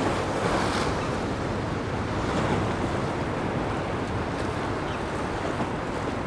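Gentle surf washing and breaking against the mossy rocks of the shoreline in a steady wash, with some wind on the microphone.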